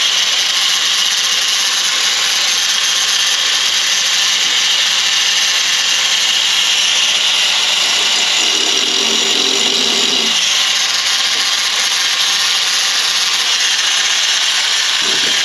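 A power tool running without pause, a steady grinding noise; a short low tone joins it about eight seconds in.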